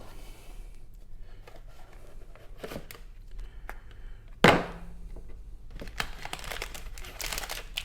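Cardboard model-kit box and its packaging being handled: scattered small clicks and rustling, one sharp knock about four and a half seconds in, then steady crinkling toward the end.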